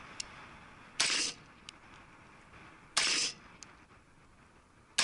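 Three shots from a .223 AR pistol with a 7.5-inch barrel, fired about two seconds apart, the last right at the end.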